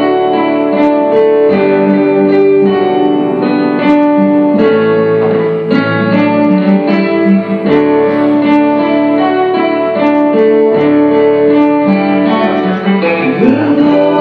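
Guitar and keyboard playing sustained chords that change every second or so.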